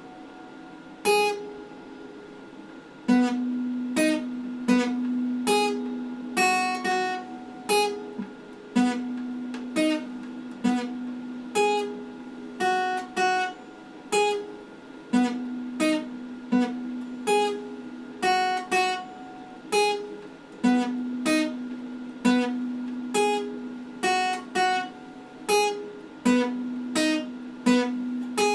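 Acoustic guitar playing a slow repeating chord figure, the chords plucked about twice a second. After two lone chords, the figure starts about three seconds in and comes round every five or six seconds, each round opening with a low note that rings on under the chords.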